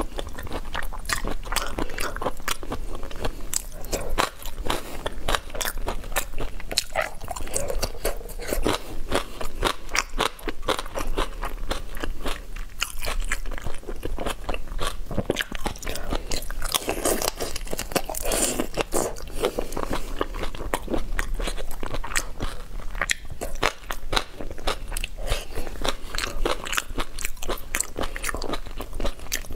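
Close-miked eating of whole shell-on prawns: a dense, irregular run of crunching and crackling as the shells are bitten and broken, mixed with chewing.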